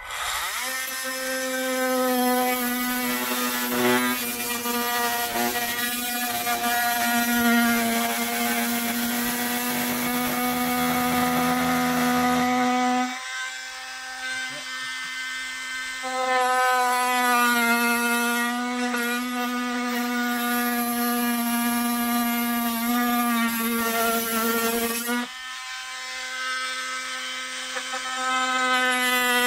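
Cordless oscillating multi-tool running with a steady buzz as its blade cuts into the boot-floor carpet and trim along a marked line. The buzz drops in level twice, about halfway through and again near the end, as the cut lightens, then picks back up.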